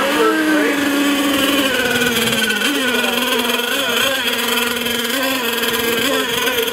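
Motors of several radio-controlled racing boats running at speed together, a mix of steady whining tones whose pitch wavers up and down as the boats race around the course.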